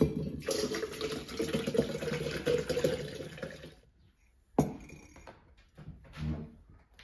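Liquid poured from a glass bottle into a tall tumbler, splashing for about three and a half seconds. About four and a half seconds in, a ceramic mug is set down on the counter with a single sharp knock.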